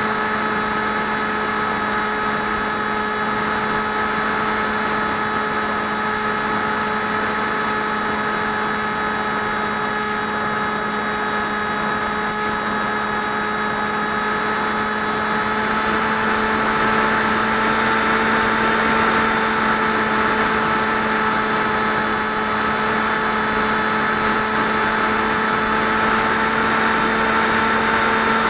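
Electric motor and propeller of a Swift 2 FPV plane running steadily, heard from the onboard camera as a steady whine over a rush of air noise. From about halfway through the whine rises slightly in pitch and gets a little louder.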